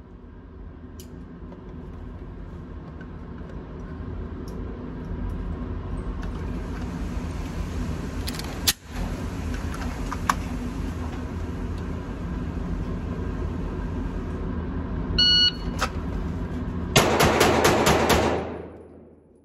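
A steady low rumble throughout, then about 15 seconds in a shot timer's start beep, followed a second and a half later by a fast string of about eight shots from a Canik SFX Rival 9mm pistol, which then fade away.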